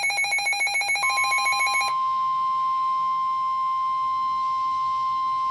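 Weather-radio alert tones: a rapidly pulsing electronic warble of several tones stops about two seconds in. Under it, about a second in, the steady single-pitch 1050 Hz NOAA Weather Radio warning alarm tone begins and holds, announcing a new warning.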